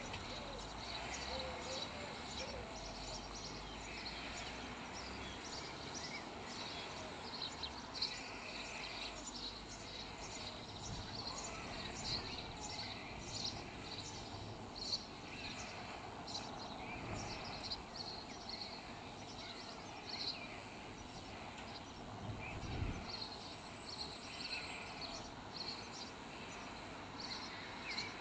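Small songbirds chirping over and over, short high notes repeating irregularly against a steady outdoor background hiss.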